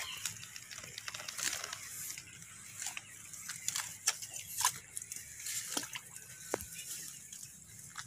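Long-handled narrow spade cutting and scraping into moist soil around a durian seedling's root ball as it is dug out, in irregular short strokes, the sharpest a little past the middle.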